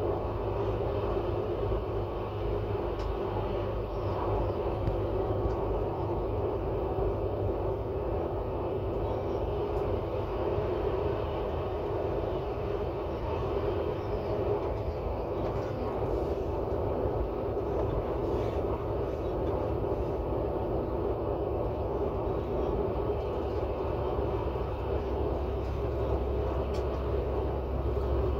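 Regional train running, heard from inside its rear driver's cab: a steady drone of running and rolling noise with a low rumble.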